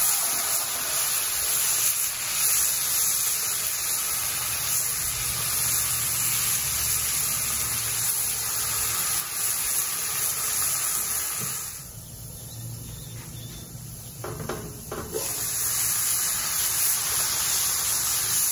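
A whole spatchcocked chicken searing in hot oil in a cast iron skillet: loud, steady sizzling and frying. It dips for a few seconds about two-thirds of the way through, then comes back.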